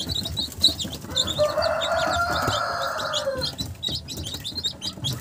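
A brood of newly hatched chicks (Rhode Island Red, Black Australorp and Barred Plymouth Rock) peeping over and over in quick high cheeps. About a second in, a lower, longer sound joins them for some two and a half seconds.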